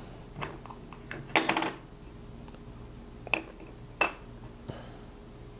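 Hands handling a camera, its hard plastic case and lens caps on a tabletop: a handful of light clicks and knocks, the loudest a short rattle about a second and a half in.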